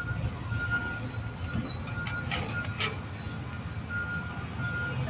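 Sany SY215 hydraulic excavator's diesel engine running, with its warning alarm beeping about twice a second in short runs. A couple of sharp metallic scrapes or clanks come about halfway through.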